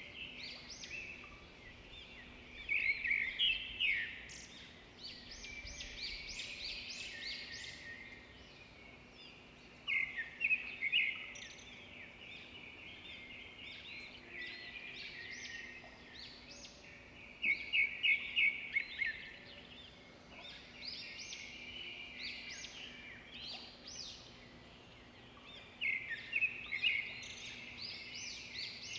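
Small songbirds chirping and twittering in repeated bouts of quick, high chirps, some bouts fast and rhythmic. A faint steady low hum runs beneath.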